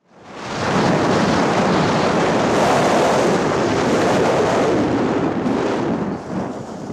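Wind rushing and buffeting the microphone of a helmet-mounted camera during a parachute descent, steady and loud, easing off near the end.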